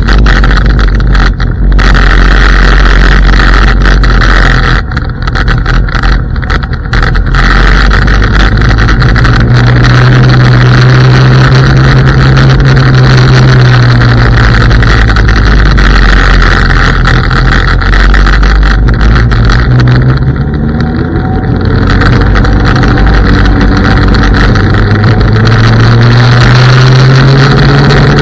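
Loud, steady wind rush on the microphone and tyre noise from an IO Hawk Legend electric scooter riding over asphalt. Under it a low motor hum slides down and back up in pitch a few times as the speed changes.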